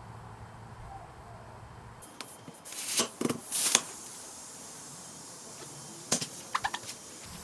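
A couple of brief scraping noises about halfway through, then a short run of sharp clicks near the end.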